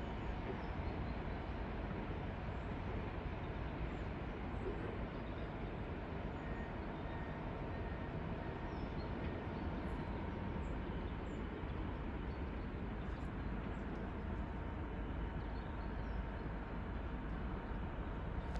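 Steady low rumble of a long intermodal container freight train rolling past, with faint bird chirps.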